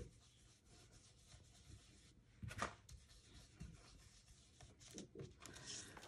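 Near silence, with faint rubbing of a foam ink blending tool worked over a paper stencil and a few soft taps, the clearest about two and a half seconds in.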